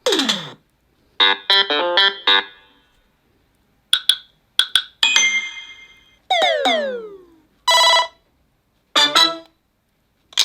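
A series of short Samsung Galaxy Note 20 Ultra ringtone sounds played one after another, with brief silences between them. They include a falling sweep, a quick run of synth notes, short chimes, several falling glides and a short buzzy tone.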